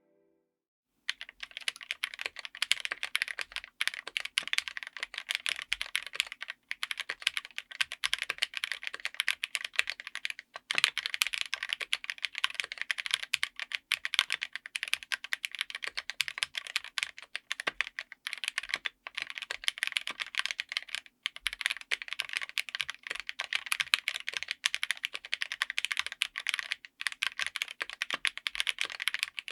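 Rapid, continuous typing on a mechanical keyboard with Akko CS Crystal linear switches, which have full polycarbonate housings, mounted on an FR4 plate. The typing starts about a second in and runs with a few brief pauses.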